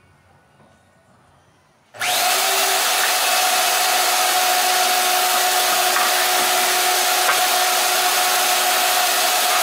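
A power saw switches on about two seconds in and runs loud and steady while cutting a wooden board into strips.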